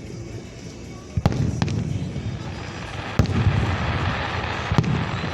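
Aerial fireworks bursting: four sharp bangs about a second or two apart, each followed by a low rumble, with crackling from the later shells.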